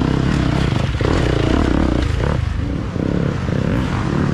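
Off-road racing dirt bike engines revving up and down, loud and continuous.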